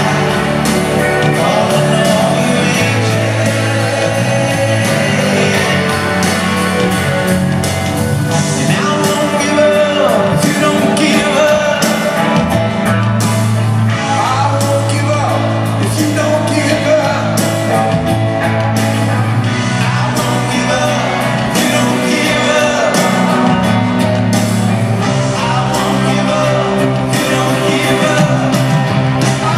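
Live rock band playing with a sung lead vocal: electric guitars, keyboards, bass and drums with cymbal crashes.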